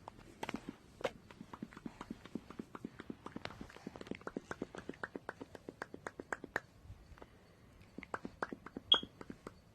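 A one-year-old making rapid clicking noises, about seven clicks a second for several seconds, then a short pause and a few more clicks near the end.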